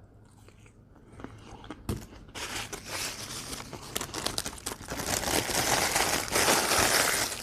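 Food packaging being handled and crinkled close to the microphone: quiet at first, then a dense, crackly rustle sets in about two seconds in and carries on.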